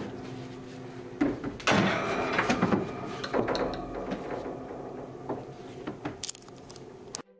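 Knocking and rattling over a steady hum, loudest in a cluster of knocks from about a second to three seconds in; the sound cuts off suddenly just before the end.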